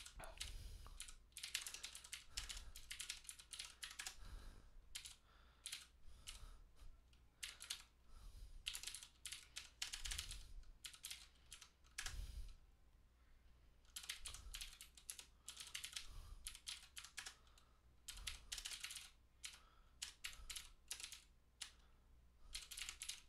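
Faint typing on a computer keyboard, rapid key clicks coming in bursts separated by short pauses.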